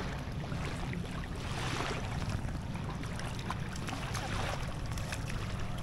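Water lapping and splashing under a steady low wind rumble on the microphone, with scattered small splashes and clicks.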